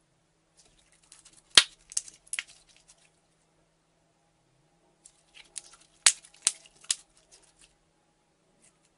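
Slime being stretched and pulled by hand, crackling and popping in two bouts about four seconds apart, each with three sharp pops.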